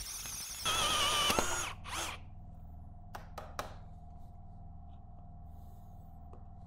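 1½-inch hole saw in a cordless drill cutting through 1/8-inch-wall steel box tube. Under a second in, it rises to a loud, wavering high squeal for about a second as it breaks through, then stops short. A few light metallic clicks follow.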